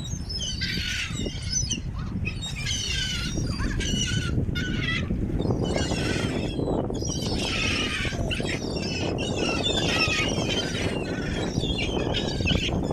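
A flock of gulls squawking and calling over one another in repeated clusters, over a steady low noise.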